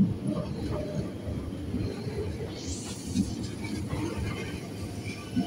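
Double-deck electric commuter train running along the platform: a steady low rumble of wheels on rails with scattered knocks, and a brief hiss about three seconds in.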